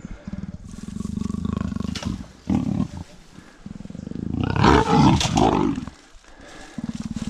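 Caged wild leopard growling in long, low, rasping bursts, with a louder snarl about four and a half seconds in.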